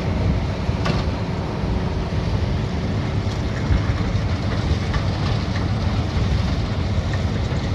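Rice combine harvester running steadily in the field, its engine and machinery giving a constant low rumble.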